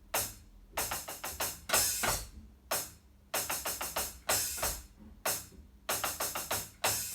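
Electronic drum kit's hi-hat sound, played in a repeating pattern: quick runs of short, bright strokes alternating with single strokes that ring a little longer.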